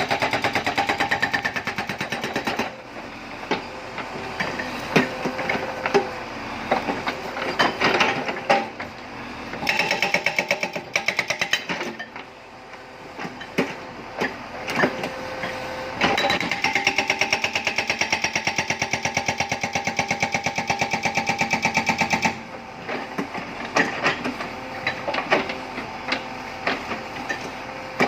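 Hydraulic rock breaker on a Tata Hitachi Shinrai backhoe loader hammering in three long runs of rapid blows, the longest about six seconds. Scattered single knocks and cracks fall between the runs.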